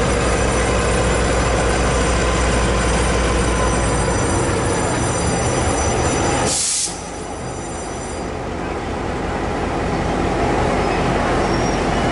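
Taiwan Railways R157 diesel locomotive hauling a freight train slowly through a station, the engine running under the noise of steel wheels with high-pitched wheel squeal. About six and a half seconds in there is a brief hiss, and the squeal dies away soon after.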